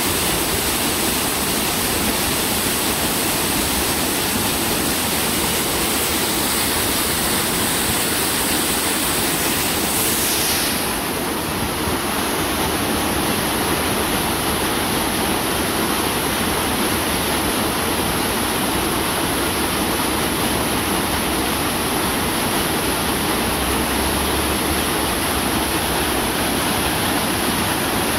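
Waterfall pouring down a rock face and splashing into the pool below: a steady, loud rush of falling water.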